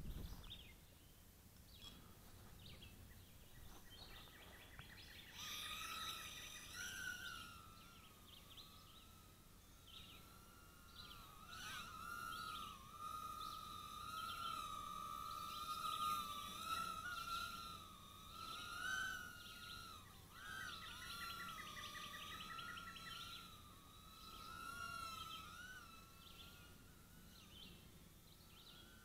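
Cheerson CX-10 mini quadcopter's four tiny coreless motors whining in flight: a faint, high-pitched whine that starts about five seconds in and wavers up and down in pitch.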